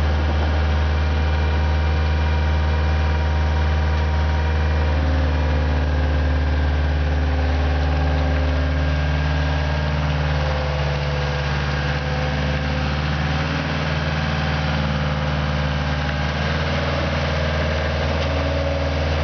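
Bitelli BB632 asphalt paver's diesel engine running steadily with a deep, even hum while the machine drives off and turns, growing a little fainter partway through.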